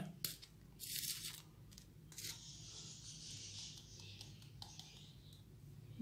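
Faint scraping and rasping of a small plastic probiotic powder bottle being handled and its cap unscrewed, the longest rasp about a second in and a few lighter scrapes after. A low steady hum runs underneath.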